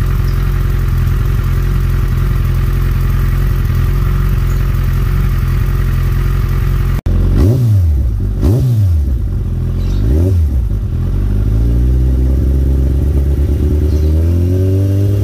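Kawasaki ZX-14R's inline-four engine idling steadily through an Akrapovic carbon slip-on exhaust. About seven seconds in, the throttle is blipped three times in quick succession, then opened more slowly for a longer rise in revs near the end.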